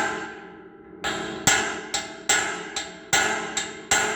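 Hammer striking metal, about eight sharp ringing blows roughly half a second apart, knocking a bearing loose on a John Deere 550 tiller.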